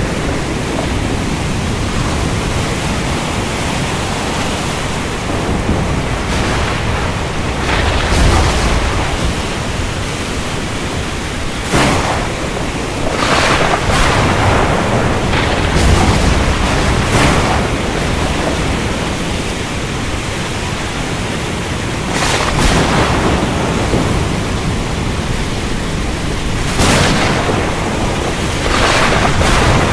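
Thunderstorm at sea: a steady hiss of rain and surf, with deep rumbles of thunder and several sudden louder bursts scattered through it.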